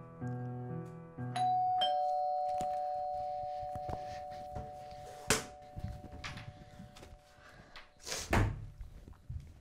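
Two-note ding-dong doorbell chime, a higher note and then a lower one, ringing on and slowly fading; soft piano music breaks off just before it. A few soft thumps and rustles follow, the loudest near the end.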